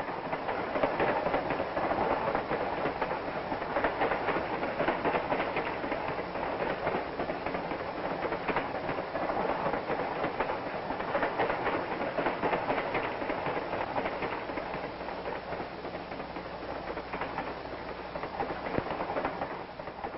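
Passenger train running at speed: a steady rumble with a dense clatter of wheels over rail joints.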